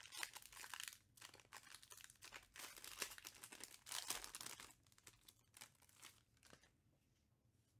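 Foil trading-card pack wrapper being torn open and crinkled by hand: irregular crackling, busiest for the first five seconds and then thinning to a few faint rustles.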